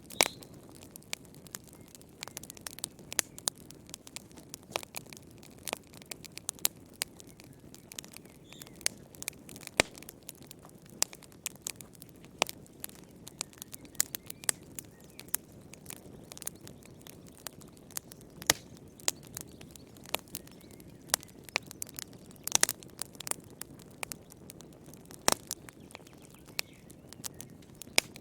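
Wood fire in a fireplace crackling, with irregular sharp pops and snaps over a low, steady rush of the flames.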